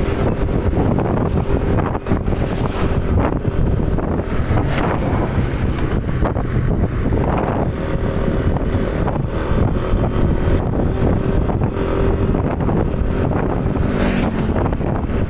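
Wind noise on the microphone of a phone filming from a moving vehicle, over steady road and engine noise.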